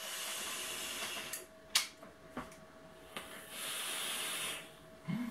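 Airy hiss of a drag on a sub-ohm dripping-atomizer vape, about a second long, then two short clicks. About three and a half seconds in comes a long, breathy exhale of the vapour cloud.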